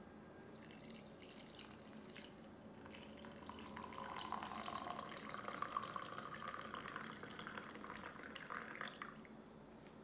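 Hot coffee poured from a glass French press into a glass mug over cheese cubes: a thin trickle starts about half a second in, turns into a fuller splashing stream about four seconds in with its pitch rising slightly as the mug fills, and stops near the end.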